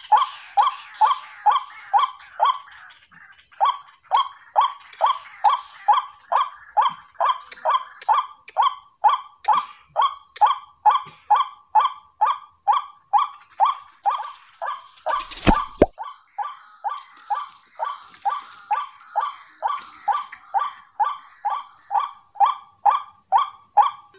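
White-breasted waterhen (ruak-ruak) calls repeated very regularly, about two a second, each a short downward-sweeping croak, over a steady high hiss. A single sharp knock comes about fifteen seconds in.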